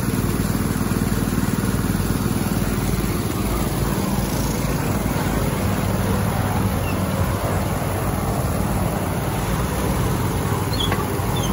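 Small petrol-engine portable water pumps running steadily in a continuous drone, dewatering a cofferdammed excavation.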